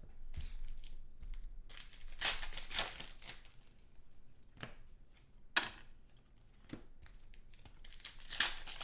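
Foil trading-card pack wrapper being torn open and crinkled by hand, in several bursts of rustling, with one sharp click about five and a half seconds in.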